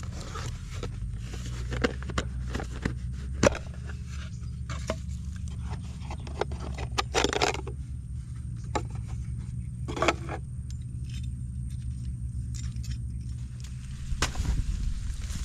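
Scattered clicks and knocks with a scrape about seven seconds in, over a steady low rumble: handling noise as a bag of vegetables and cooking things are handled.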